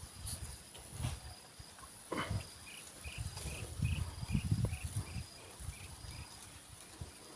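Wild outdoor ambience: a run of about ten short, high chirps at roughly two a second from a small calling animal, over a steady high-pitched insect drone and low rumbling.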